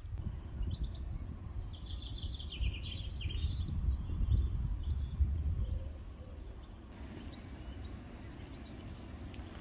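Outdoor ambience with an uneven low rumble and small birds chirping in quick short calls, mostly in the first three or four seconds; the rumble eases about six seconds in.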